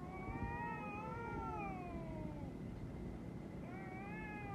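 Two cats squaring off, with long drawn-out yowls: the first rises and then falls over about two and a half seconds, and a second begins near the end. This is the warning caterwaul of cats in a territorial standoff.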